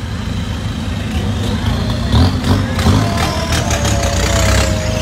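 Modified turbo-diesel pickup truck's engine running with a deep, uneven rumble as it rolls slowly past.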